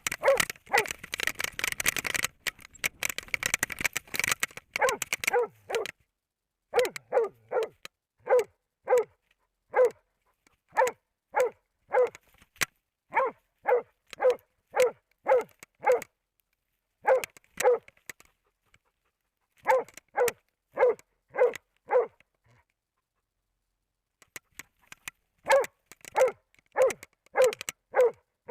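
Moose-hunting dog barking in long runs of short, evenly spaced barks, with brief pauses between runs and a longer pause near the end. The first few seconds hold a rushing noise.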